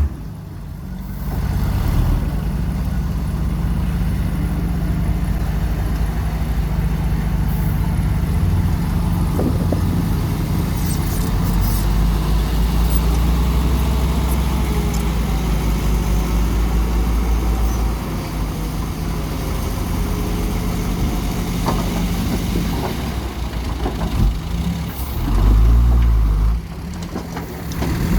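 Heavy diesel machinery engine running steadily, with a brief louder surge near the end.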